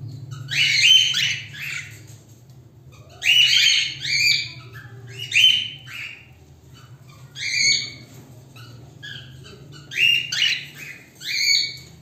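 Flock of cockatiels calling: about six bursts of loud, shrill calls, each a quick run of falling notes, over a faint steady low hum.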